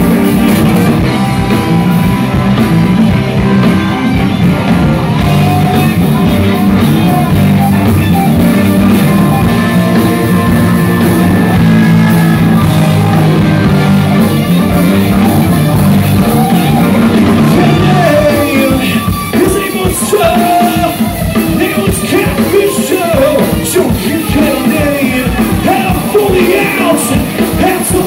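Live rock band with trumpet and saxophone playing an instrumental section on electric guitars, bass and drums. About eighteen seconds in the low end drops back and a bending lead line comes forward.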